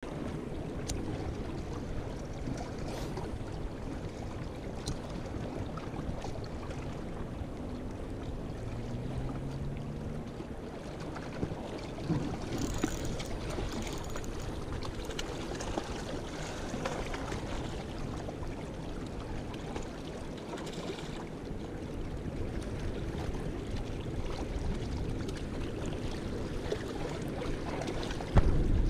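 Steady rush of river water with wind buffeting the microphone, a few faint clicks, and one louder knock near the end.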